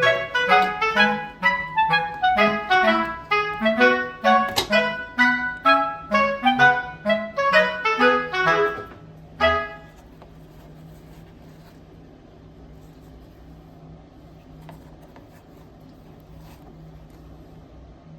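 A clarinet-like melody of quick, detached notes plays for about nine seconds and then stops, leaving a low steady hum.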